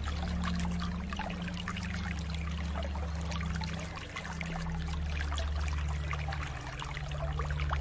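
Water trickling and splashing in a continuous, irregular stream of small splashes and drips, with a low steady hum beneath that shifts in pitch a few times.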